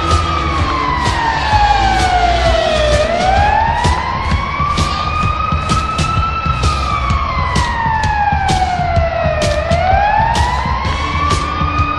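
Hockey goal siren wailing, its pitch sliding slowly down and back up about every six and a half seconds, over a steady low rumble and scattered sharp knocks.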